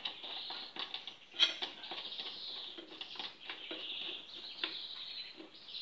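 Metal cutting blade of an electric lawn mower being handled and seated onto its plastic fan hub: light clicks and scrapes, with one sharper knock about a second and a half in.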